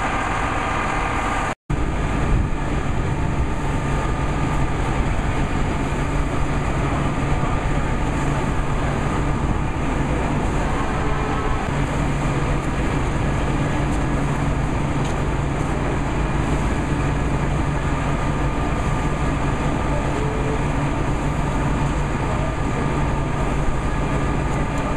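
Parked motorcoach's diesel engine idling with a steady low hum. The sound cuts out for an instant about a second and a half in.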